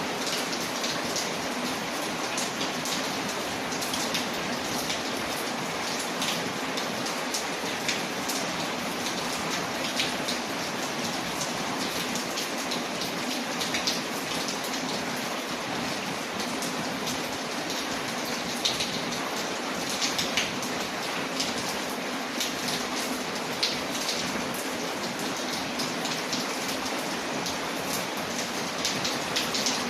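Steady rain on a window with a crackling wood fire: an even hiss of rain peppered throughout with short, sharp pops and ticks.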